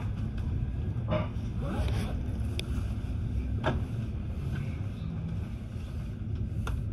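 Steady low rumble of a moving passenger train heard from inside the carriage, with a few short sharp clicks from the running gear.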